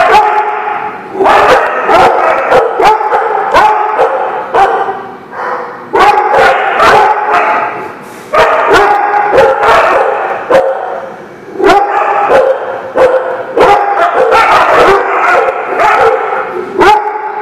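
Dogs barking and yipping during rough play. The calls come in runs of several seconds with short breaks between them.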